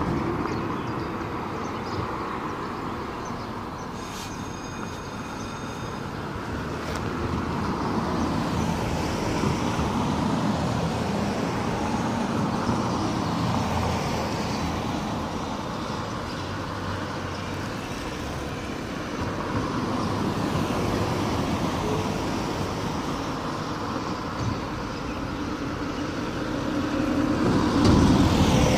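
Road traffic: cars passing on a nearby street, the noise swelling and fading several times, with a brief high-pitched tone about four seconds in.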